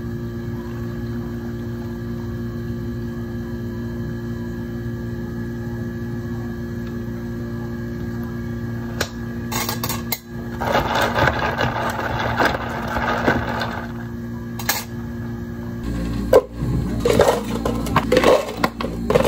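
Sparkling water poured from a plastic bottle over ice in a plastic cup, fizzing over a steady machine hum. About nine seconds in come clicks and a few seconds of clattering as a dome lid is fitted to the cup. Near the end, ice is scooped with a metal scoop and clatters into a plastic cup.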